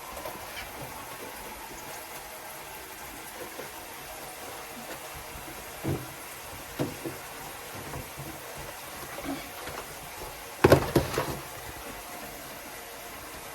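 Items being handled in a refrigerator: a few light knocks around the middle, then a quick clatter of sharp, louder knocks about three-quarters of the way through, over a steady low hiss.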